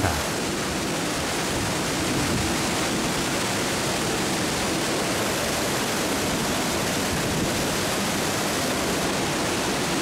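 Waterfall pouring down between rock walls into white-water rapids: a steady, unbroken rush of falling and churning water.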